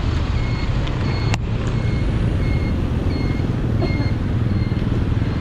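Short electronic beeps repeating about twice a second, like a vehicle's reversing alarm, over a steady low rumble of traffic and wind. A single sharp click comes a little over a second in.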